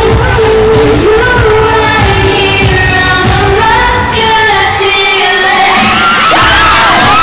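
Pop song sung live into microphones over a backing track through a loud PA. An audience starts screaming about six seconds in.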